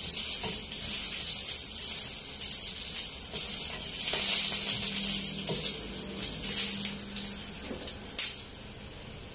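Oil sizzling in a frying pan over a gas flame as the first step of garlic fried rice (sinangag), with a few scrapes and taps of a spatula against the pan. The sizzle is steady, then drops away about eight seconds in when the stirring stops.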